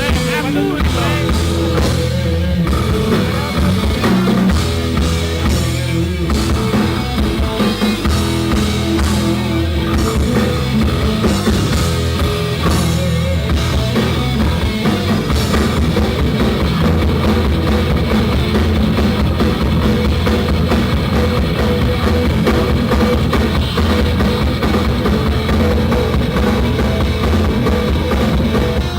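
Rock band playing live, loud and dense, with a drum kit driving the music. It breaks off abruptly at the very end.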